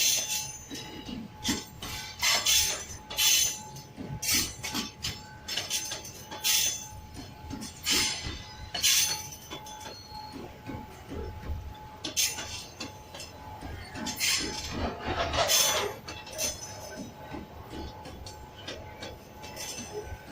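Train wagons rolling past, with irregular sharp metallic clanks and clicks over a low rumble.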